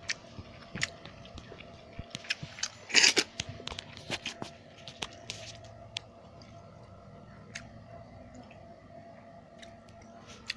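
Close-up eating sounds of a person eating a rice meal by hand: chewing and crunchy bites with sharp clicks and taps, the loudest cluster about three seconds in, settling into quieter chewing in the second half.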